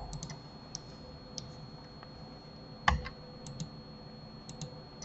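Scattered computer keyboard and mouse clicks, about a dozen light clicks with one louder knock about three seconds in, over a faint steady high whine.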